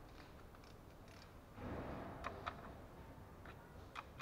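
Faint, scattered metallic clicks of a socket tool working the bolts that hold the oil strainer to a Toyota RAV4's CVT valve body, with a brief rustle about a second and a half in.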